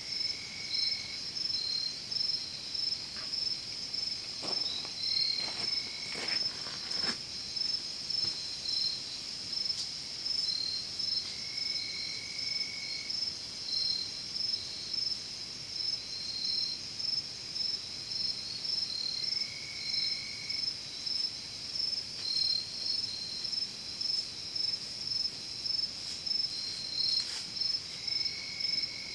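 Evening insect chorus: a steady high-pitched trilling with a pulsing note just below it, and a lower drawn-out call about a second long recurring every few seconds.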